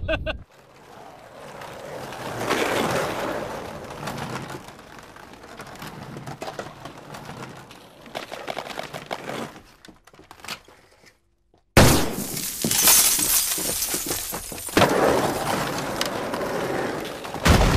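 Noisy crashing and clattering that starts suddenly and loud about twelve seconds in, after a second of silence, with softer noise before it.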